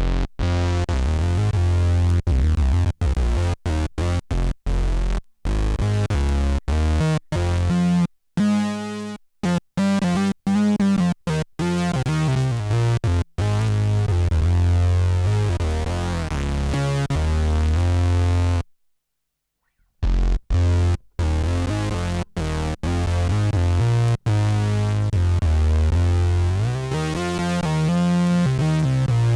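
Fender Jazz Bass played through an Electro-Harmonix Bass Mono Synth pedal, giving low synth-bass notes in a riff of short, sharply stopped notes and longer held ones. On some notes the tone sweeps brighter and back down, and the playing breaks off for about a second near the middle.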